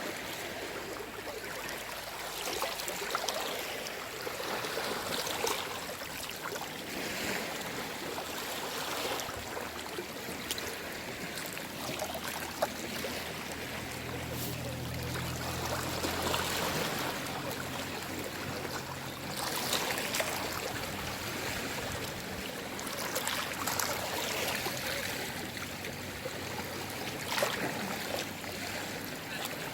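Small, calm sea waves washing and lapping on the shore, with a swell and splash every few seconds. A low hum rises faintly in the middle.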